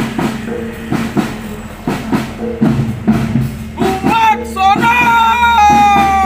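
Bregada troupe marching music: steady drum beats under a short repeating figure, joined about four seconds in by a long held high note that wavers, then sags in pitch at the end.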